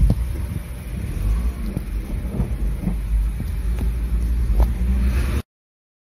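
Cars driving past at close range and over a level crossing: engine and tyre rumble with wind buffeting the microphone. The sound cuts off abruptly about five and a half seconds in.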